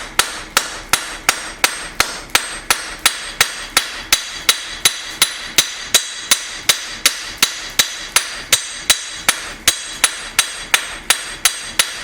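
Hand hammer striking hot knife steel on an anvil in a steady rhythm, about three blows a second, each with a short metallic ring. The blade's edge side is being thinned to draw the metal out.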